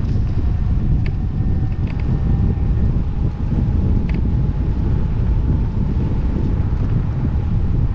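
Wind buffeting the camera microphone on a moving electric scooter, a steady heavy rumble, with a faint steady whine underneath and a few light clicks.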